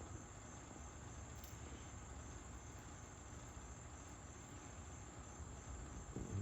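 Steady, high-pitched chorus of insects trilling continuously over a faint background hush.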